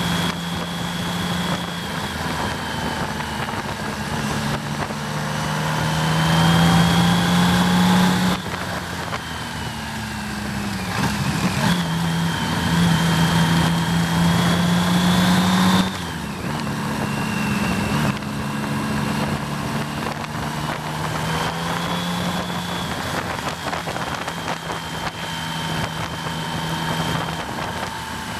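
1988 BMW K75's three-cylinder engine running under way, its pitch climbing slowly and dropping suddenly about eight seconds in and twice more around the middle as the rider shifts or rolls off the throttle, with wind noise.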